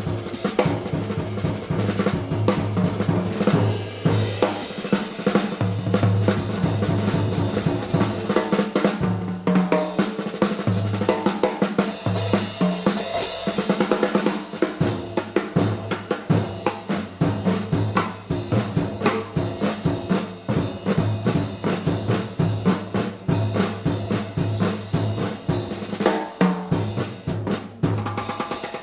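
Live jazz performance with the drum kit prominent, snare and bass drum busy over sustained low bass notes, played from an FM radio broadcast recorded onto cassette tape.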